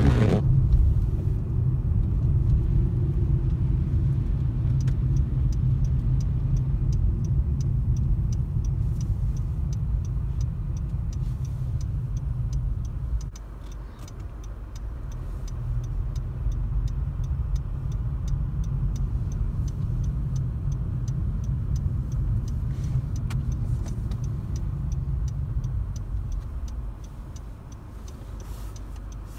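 Inside a moving car: the steady low rumble of tyres on a snow-covered road and the engine, dipping about 13 seconds in and again near the end. From about 5 seconds in there is a regular ticking of the turn-signal indicator.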